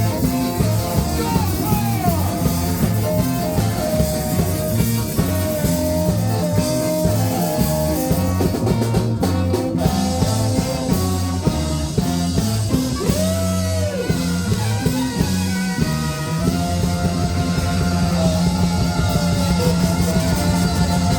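Live ska band playing: drum kit, bass and guitar keeping a steady beat under a sustained melody line that bends in pitch.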